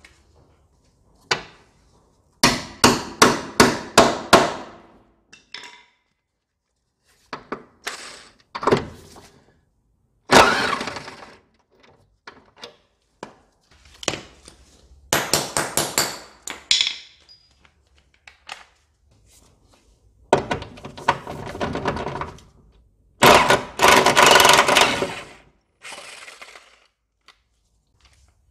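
Hammer blows on metal, a quick run of about eight strikes, then several one-to-two-second bursts of a cordless impact wrench hammering at rusty suspension bolts, with clinks of sockets and loose bolts between.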